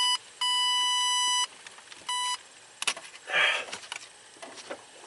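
Electronic wire-tracer receiver giving a steady, high-pitched beep, broken into a long tone, a second-long tone and a short blip before it stops about two and a half seconds in. A brief scuff of handling noise follows near the middle.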